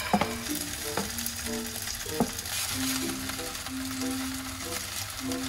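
Kimchi fried rice sizzling in a frying pan, with a few sharp knocks of a wooden spatula as cheese is scraped out of a plastic container onto the rice, the loudest about two seconds in. Soft background music plays with held notes.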